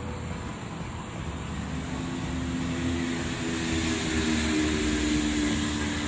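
Road traffic: a steady rush with a vehicle's engine hum that comes in and grows louder from about two seconds in.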